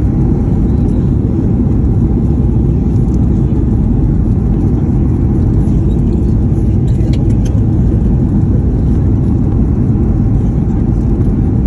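Steady low rumble of an airliner cabin during descent, with engine and airflow noise and a faint steady hum above it.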